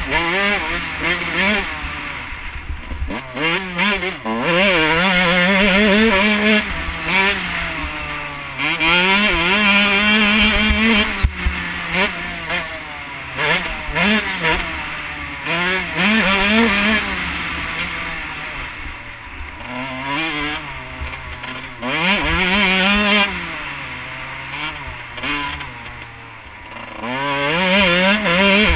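Husqvarna CR125 two-stroke dirt bike engine, bored out to 144 cc, ridden hard: the revs climb steeply and drop back again and again as the bike is worked through the gears and the throttle is rolled on and off.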